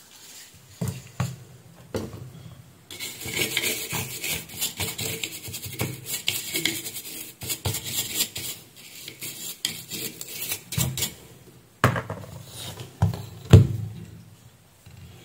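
A printed circuit board being scrubbed clean with isopropyl alcohol: a dry, scratchy rubbing that runs for about eight seconds. Near the end come a few sharp knocks and clicks as a capacitor and the board are handled.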